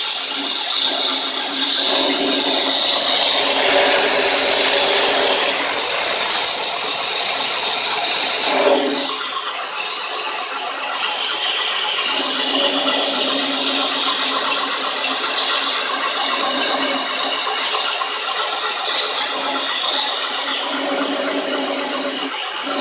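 Compressed-air blow gun hissing steadily, blowing the metal chips down into the cylinder bore while it is being cut. Under it, the Van Norman 777S boring bar runs with a steady hum.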